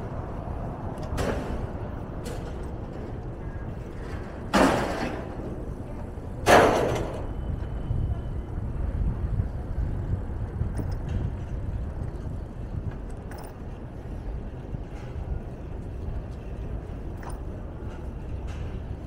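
City street traffic with a steady low rumble, broken by two short, loud bursts of hiss about two seconds apart, a few seconds in.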